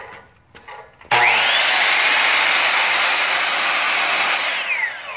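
Ryobi 10-inch sliding miter saw switched on about a second in. The motor spins up with a rising whine, runs steadily for about three seconds, then is released, and the blade coasts down with a falling whine. It is a test run of the saw with its newly replaced handle, and it runs as it should.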